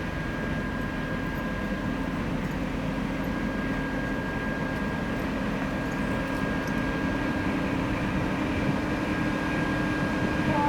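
TEP70BS diesel locomotive running at idle: a steady engine hum with a constant high whine over it, growing slightly louder near the end.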